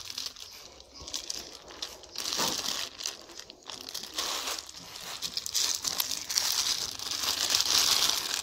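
A clear plastic bag tied shut over a potted cactus cutting, crinkling and rustling in irregular bursts as it is handled and carried. The bursts get louder in the last few seconds.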